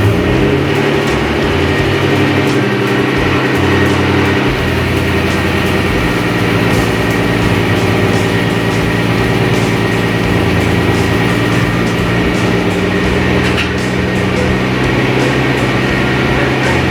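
Car engine idling steadily just after a cold start.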